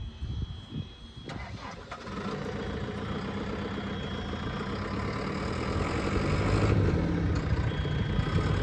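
2017 JCB 3CX backhoe's four-cylinder diesel engine being cranked and catching about a second in, then settling into a steady run that grows somewhat louder toward the end.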